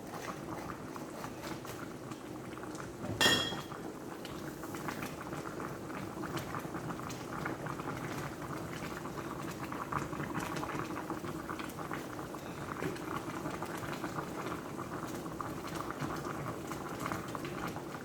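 Chicken adobo bubbling in a pot, with a steady crackle of small pops from the boiling sauce. A single ringing metal clink, like a utensil or lid striking the pot, comes about three seconds in.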